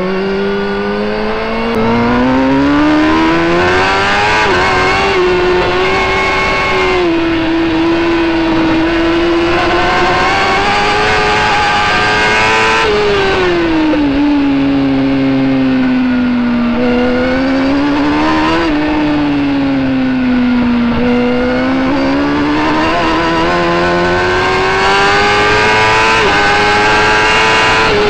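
Racing superbike engine at full race pace, heard from on board the bike. Its pitch climbs and holds high, falls away smoothly twice and climbs again each time.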